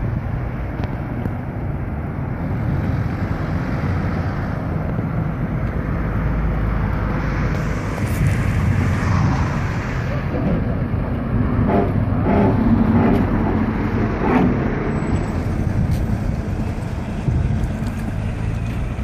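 Vehicle engine running steadily at idle, with wind on the microphone. A swell of noise comes about eight seconds in, and voices talk briefly near the middle.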